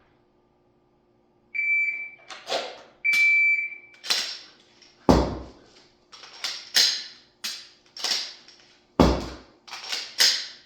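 Two electronic beeps about a second and a half apart, then a run of sharp clicks and clacks from a Glock 17 pistol being handled and dry-fired, with two heavier thumps among them.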